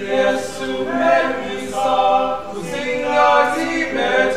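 Large mixed-voice choir singing sustained chords, all voices coming in together at the start after a brief pause.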